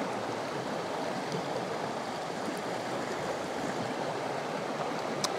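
Steady rushing noise, even and without rhythm, with a faint tick about halfway through and a sharper click just before the end.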